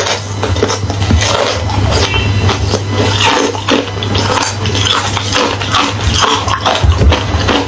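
A person chewing crunchy hollow ice: a dense, irregular run of loud cracking crunches, with a steady low hum underneath.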